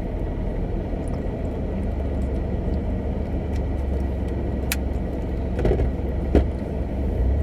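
A car's engine idling, heard inside the cabin as a steady low hum, with a couple of light clicks about five and six seconds in.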